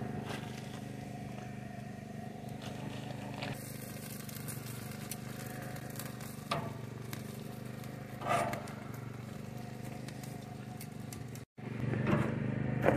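Hot dogs cooking on a pecan-wood grill fire, with a couple of sharp crackles over a steady low engine hum.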